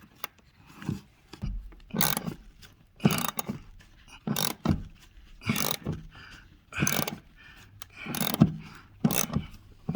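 Socket ratchet clicking back and forth in short strokes, about one a second, as it tightens the anchor bolt of a rear seat-belt buckle.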